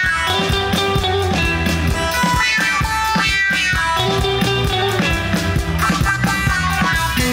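Comorian twarab dance music from a band: a steady drum beat under melodic lines of held and moving notes.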